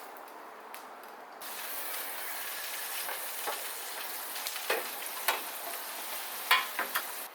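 Food sizzling in a hot pan, a steady high hiss that starts abruptly about a second and a half in, with a few sharp spattering pops near the end.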